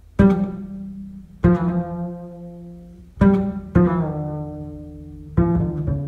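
Double bass played pizzicato in a jazz ballad: about six sparse plucked notes, each ringing and slowly decaying, with two notes close together a little past halfway and again near the end.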